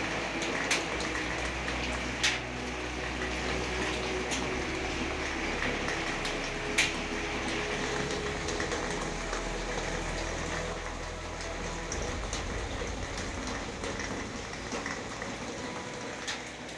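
Steady rain falling and splashing on wet paving, with a few sharp taps about a second in, at about two seconds and near seven seconds.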